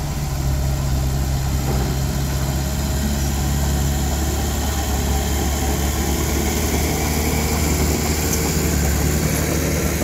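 Dump truck's diesel engine running steadily with a constant low hum while its bed is tipped up to unload soil.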